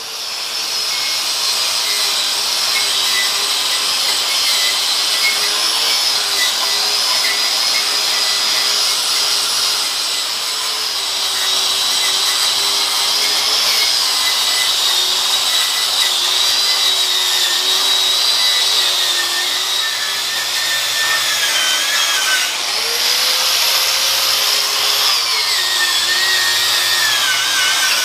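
Electric angle grinder running under load, its cleaning wheel scrubbing rust off the face of a cast iron lathe faceplate. The motor's whine wavers and sags as the wheel is pressed into the metal, with a brief dip about 22 seconds in.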